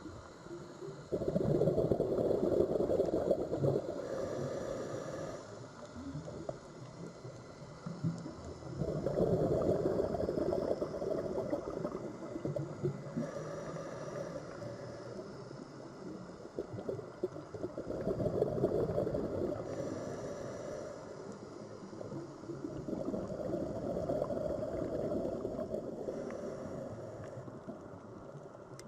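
Sea waves washing in and drawing back, in four louder surges spaced several seconds apart over a steady wash.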